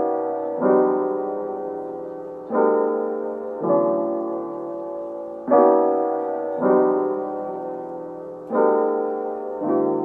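Background music: soft piano chords, struck in pairs about a second apart, the pair coming round every three seconds, each chord left to ring and fade.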